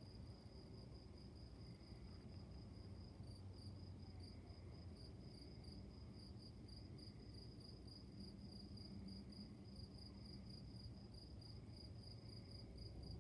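Crickets chirping steadily and faintly, with a second, higher insect call pulsing above them, over a faint low rumble of background noise.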